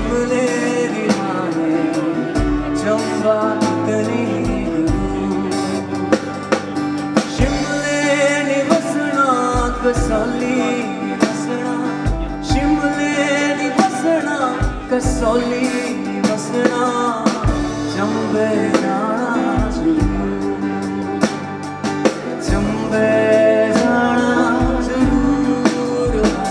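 Live band music: a male vocalist sings over a strummed cutaway acoustic guitar, with a drum kit keeping time through regular kick-drum beats.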